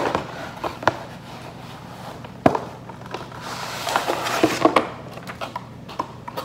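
Handling noise from a cardboard slime-kit box as it is held up and turned over: scattered light taps and knocks, a sharper knock a few seconds in, and a brief rustle about halfway through.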